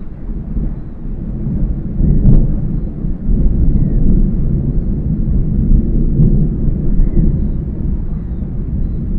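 Thunder rumbling from an approaching thunderstorm: a low rolling rumble that swells sharply about two seconds in, with a brief crack, and keeps on rumbling.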